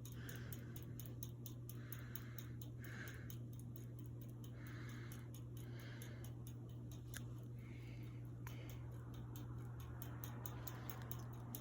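Hunter Savoy ceiling fan running on low speed: a faint steady motor hum with a fast, regular ticking.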